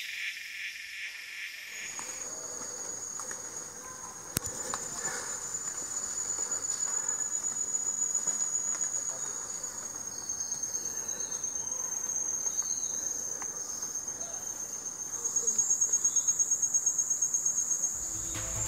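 Rainforest insects calling: one steady, high-pitched trill that shifts pitch slightly a few times and grows louder, with a rapid pulse, near the end.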